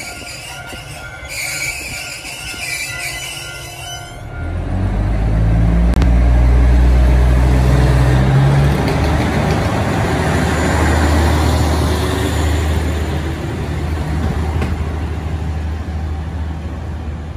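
KiHa 11 diesel railcar's engine throttling up as the car pulls away, its note rising and then running on steadily, with rail and wheel noise. Before that, in the first few seconds, a repeating high ringing tone.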